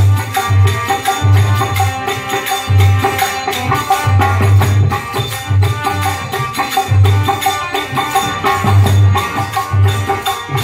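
Instrumental passage of Indian devotional folk music: a harmonium holds and plays a melody over deep dholak strokes, with jingling hand percussion throughout and no singing.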